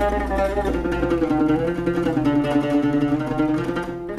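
Solo oud played with a plectrum: a continuous run of plucked notes.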